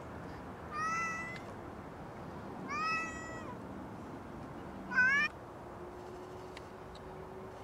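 Domestic cat meowing three times: two drawn-out meows about two seconds apart, then a short, sharply rising meow, the loudest, around five seconds in.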